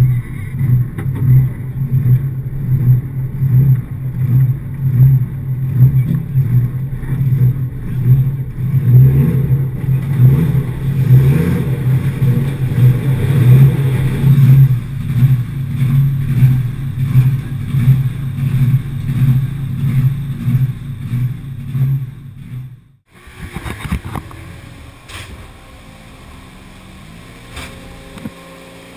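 Rally car engine running loud, with a choppy, pulsing note. About 23 seconds in it cuts off abruptly, leaving a much quieter engine hum.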